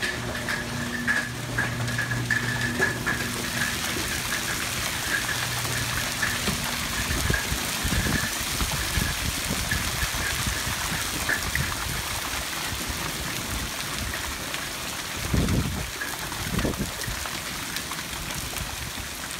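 Hail coming down hard: a dense, steady hiss of hailstones pelting the lawn, pavement and house. A low hum runs under it for the first six seconds or so, and a couple of low thumps come around fifteen seconds in.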